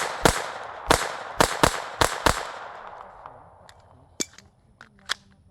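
Rapid pistol fire: six sharp shots in a little over two seconds, the last four close together, their echo fading out afterward. Two fainter sharp cracks follow near the end.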